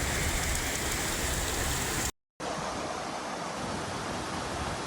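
Heavy rain and rushing floodwater, a steady wash of water noise, broken by a short silence about two seconds in, after which the rushing water carries on.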